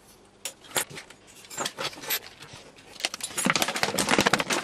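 Handling noise from a long D-cell battery pack and its grey plastic tube being slid and shifted by hand: scattered clicks and knocks, then from about three seconds in a quick run of rattling clicks and scraping.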